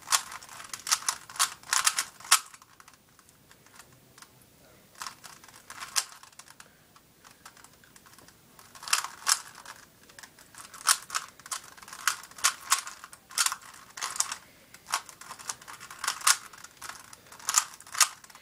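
Plastic Rubik's Cube layers being twisted by hand, clicking in quick runs with short pauses between them.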